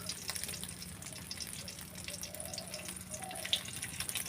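Beaten egg frying in hot oil in a karai, a soft steady sizzle with scattered small crackles and one sharper crackle near the end.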